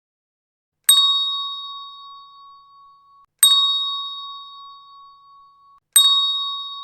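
A bell-like chime struck three times, about two and a half seconds apart, each ding ringing out and fading away.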